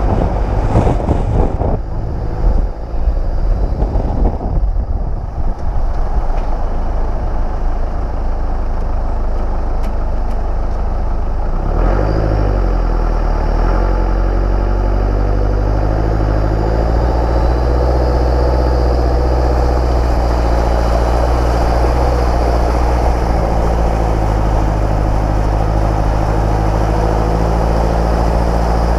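A 4x4's engine running as it drives into deep flood water, with the water rushing and sloshing along the side of the vehicle. The first dozen seconds are a rough, uneven rumble; about twelve seconds in the engine note drops and then holds steady under the sound of the churning water.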